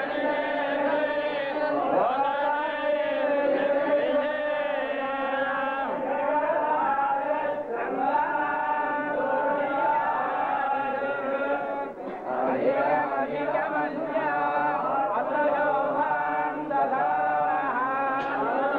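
A large group of men chanting Vedic recitation in unison, a steady sustained chant with brief pauses about eight and twelve seconds in.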